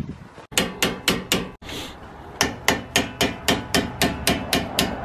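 Hammer striking a car's brake rotor repeatedly in quick succession: a handful of blows, a short pause, then a steady run of about four strikes a second, as when knocking an old rotor loose from the hub.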